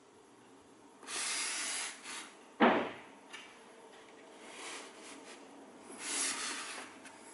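Fatshark FPV goggles being handled on a foam mannequin head: plastic and strap rubbing and scraping against the foam in two stretches, with one sharp knock about two and a half seconds in and a few lighter clicks.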